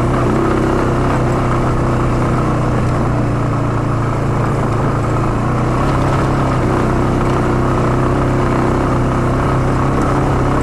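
ATV engine running at a steady pace while riding a trail, its pitch wavering slightly, over a steady rushing noise.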